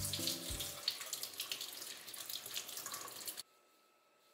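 Kitchen tap water running and splashing into a stainless steel sink while a lemon is scrubbed with a brush under the stream. The sound cuts off suddenly near the end, and soft background music fades out in the first second.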